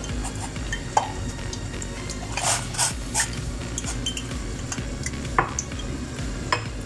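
Water at a rolling boil in a stainless steel pot, a steady low bubbling, as chicken and beef pieces go in. Several short clinks and splashes come through over the boil.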